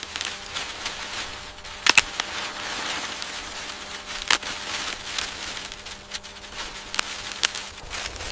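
Dry corn stalks and leaves rustling and crackling, with a few sharp snaps.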